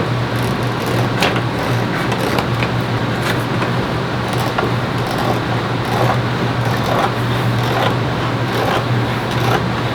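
A steady low machine hum under a constant rushing noise, with scattered light clicks throughout.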